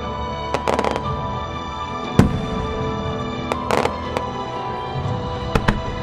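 Aerial firework shells of a music star mine bursting over the show's music, with one loud boom about two seconds in and two spells of rapid crackling, plus a few lighter pops.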